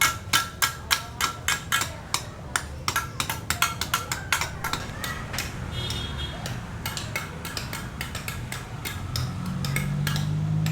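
Rapid metallic hammering, about three to four ringing blows a second, thinning out after about five seconds. Near the end a low engine hum rises in.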